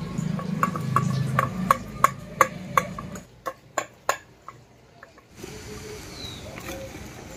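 Light taps of a utensil on metal cookware, about three a second, then a few more spaced ones and a short pause. Near the end a bird chirps once, briefly.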